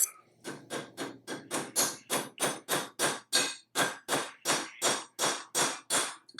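Hand-chamfering the edge of a steel roll pin: an even run of short scraping strokes, about three a second.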